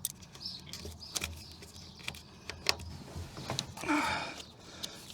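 Scattered light clicks and taps from hands working on material, with a short rustling noise about four seconds in.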